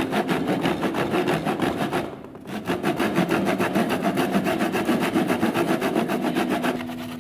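Hand saw cutting through a particleboard disc, quick even rasping strokes with a short pause about two seconds in.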